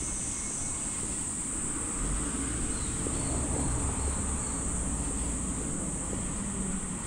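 Outdoor ambience under trees: a steady high-pitched insect buzz over a low rumble of wind and traffic, with a few faint high chirps around the middle.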